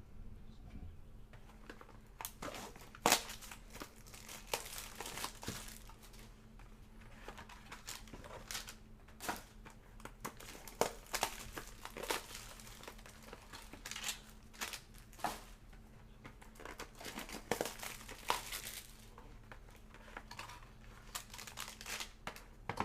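Trading card boxes and packs being opened by hand: irregular crinkling of plastic wrapping with short tearing and scattered clicks of handling.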